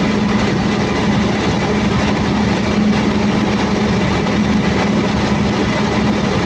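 Caterpillar C15 inline-six diesel generator engine running steadily, a loud, even drone with a constant low hum. The engine has a very annoying sound, which the mechanic traces to injector number 3 not functioning well.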